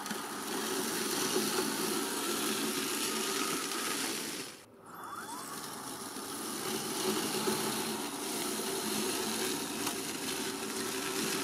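Ecovacs Goat G1 robot lawn mower's brushless electric motors whirring steadily as it is driven across grass by remote control in manual mode. The sound drops out briefly a little before halfway, then resumes.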